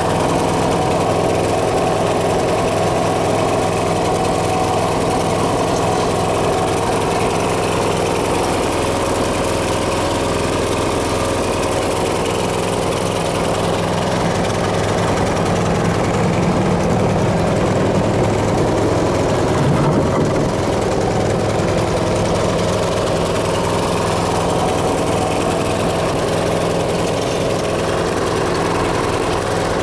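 Briggs & Stratton single-cylinder engine on a PowerWagon motorized dump cart, running steadily at idle.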